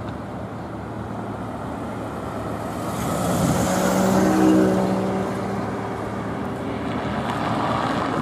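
Road traffic with a car passing close by: the sound swells to a peak about halfway through, with engine hum and tyre noise, then fades back into the steady traffic background.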